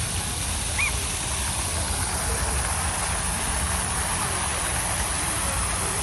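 Steady outdoor rushing noise with a low rumble underneath, and one short faint high chirp about a second in.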